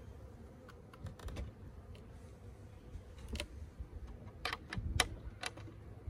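Light knocks and clicks from a wooden Colony Keeper beehive as its hinged side panel is pushed shut. The clicks are scattered, a few around a second in, then a quicker run of them near the end, the loudest about five seconds in.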